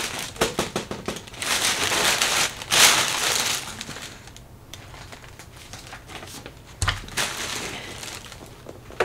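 Packaging crinkling and rustling as a parcel is opened and the product box pulled out, busiest in the first few seconds, then softer rustling with a light bump near the end.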